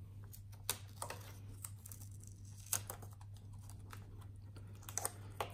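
Irregular small clicks and taps of fingers handling plastic flat-cable connectors and tape on a computer motherboard, a few sharper snaps among them, over a steady low hum.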